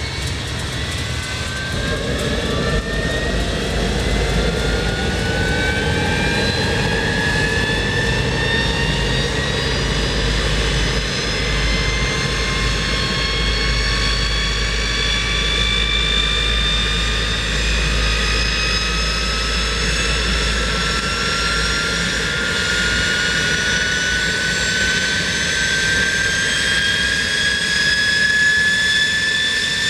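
Delfin L-29's Motorlet M-701 turbojet spooling up on engine start: a whine that climbs slowly and steadily in pitch, over a low rumble that grows louder about two seconds in.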